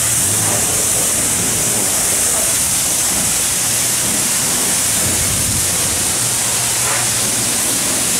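Self-serve car wash pressure-washer wand spraying high-pressure water onto the body of a fire engine: a steady hiss of spray, with a low hum underneath.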